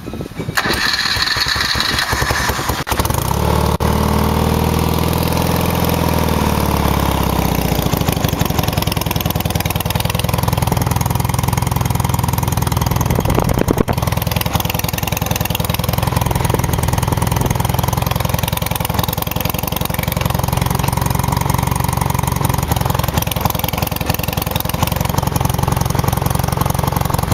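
BMW R75 air-cooled boxer twin, breathing through a short homemade muffler (a cut-down Zeuna with a Supertrapp baffle end), starting up. It catches about three seconds in, its revs rise and fall back over the next few seconds, then it idles steadily.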